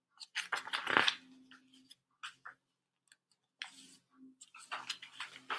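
Paper pages of a picture book rustling as they are handled and turned, in two stretches with a few small clicks and taps between them.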